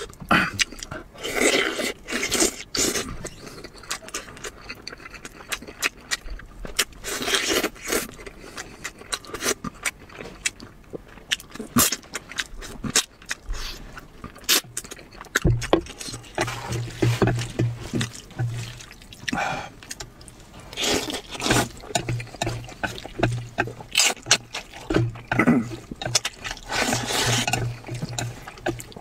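Close-miked eating: wet chewing, lip smacks and tearing bites of braised meat off the bone, then repeated loud slurps of saucy wide noodles. A low steady hum runs under it from about halfway.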